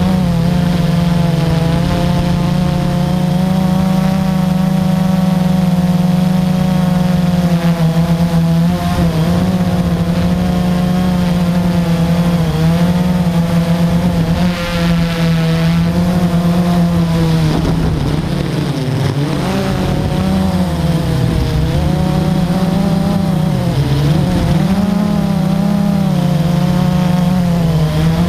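Multirotor drone's motors and propellers humming steadily, heard through the drone's own camera. The pitch wavers up and down in the second half as the drone manoeuvres.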